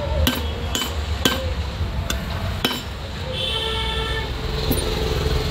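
Metal alternator parts clinking as they are handled on a steel workbench, five light knocks in the first three seconds. Then a vehicle horn sounds for about a second, over a steady low traffic rumble.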